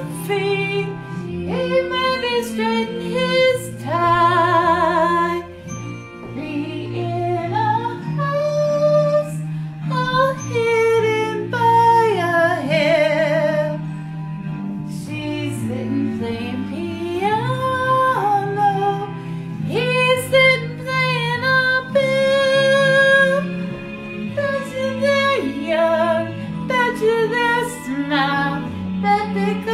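A woman singing a slow ballad with long held notes and vocal runs over a karaoke backing track.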